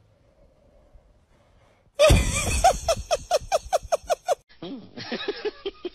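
Near quiet for about two seconds, then a person bursts out in loud, rapid laughter, about six pulses a second.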